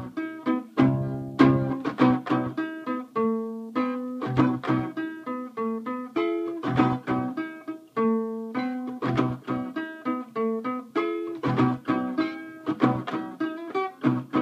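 Guitar played solo: a continuous run of picked single notes and short chords, some of them held, making an uneven melody.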